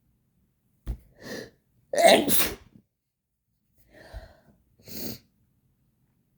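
A person sneezing into toilet paper. A short breath about a second in builds to one loud two-part sneeze about two seconds in, followed by two quieter breathy sounds near the end.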